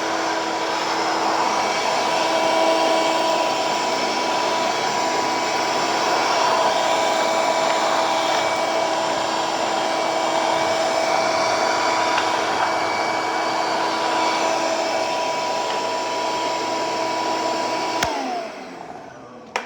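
An electric motor appliance with a blower, such as a hair dryer or vacuum cleaner, runs steadily with an airy rush and a steady whine. About 18 seconds in it clicks off, and its whine falls as it winds down.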